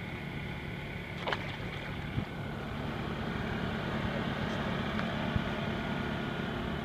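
Steady hum of a boat's motor running, with a few faint clicks and knocks.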